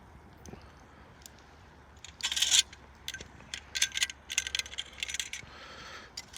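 Wood fire crackling and popping: scattered sharp pops, a loud burst of crackle about two seconds in, and a quick run of crackles in the second half.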